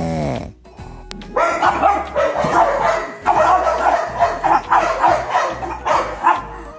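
A dog barking and yipping in quick, choppy strings from about a second and a half in, over background music. The first half-second holds the end of an English bulldog's snore.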